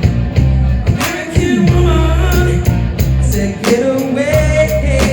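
Live rock band music: drums and bass under a bending lead line, in a stretch between sung lyrics.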